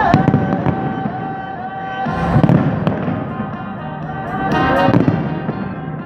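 Fireworks going off in bangs and crackles, with three louder bursts about two and a half seconds apart, over music with a sustained melody.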